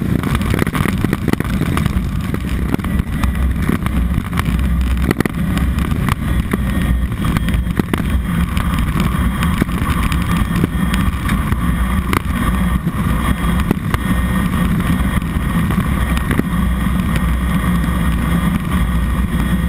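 Turboprop engine and propeller of a Cessna 206 Soloy turbine conversion running at a steady, loud drone, with a few faint clicks.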